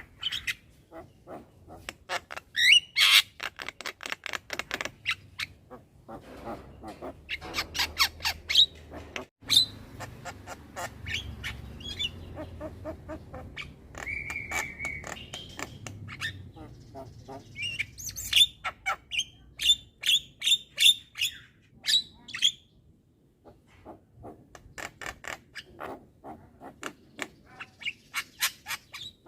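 Young Javan myna chattering non-stop: rapid runs of harsh clicking and squawking notes with short pauses, and a brief held whistle about halfway through.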